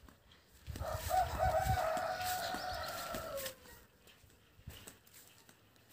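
A rooster crowing once. The call lasts about three seconds and falls away in pitch at the end.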